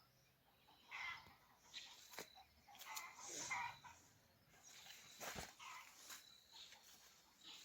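Faint animal calls, a few short ones spread out, with scattered sharp clicks and a thin steady high whine.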